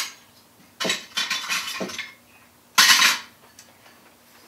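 Metal kitchen utensils clinking and clattering as they are rummaged through for a biscuit cutter: several small clinks, then one louder clatter about three seconds in.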